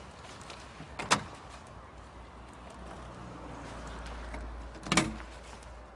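Two sharp knocks or thumps on a car's bodywork, about four seconds apart, over a low steady rumble. They are a test of a newly armed car alarm, and no alarm sounds.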